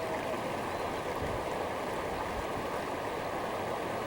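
Running water: a steady, even rush.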